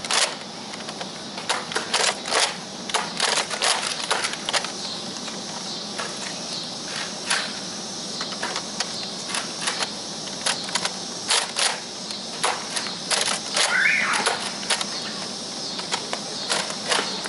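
Nerf foam-dart blasters being primed and fired: many irregular sharp clacks and snaps, with a steady high hiss behind them.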